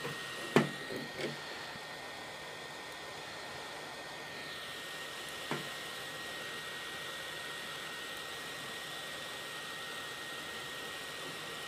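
Hot air rework gun blowing steadily, a continuous rush of air with a thin high whine. A few light clicks come in the first second or so and once more about five and a half seconds in.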